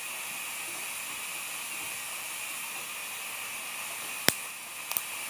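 Steady hiss, with one sharp click about four seconds in and a couple of fainter clicks near the end.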